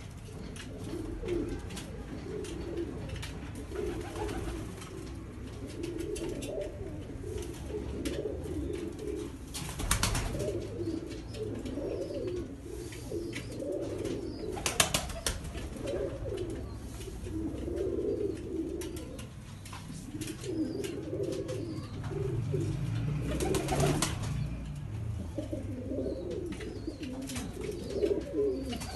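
Banka pigeons cooing over and over in a loft, low warbling coos one after another. A few brief sharp clatters break in, the loudest about fifteen seconds in.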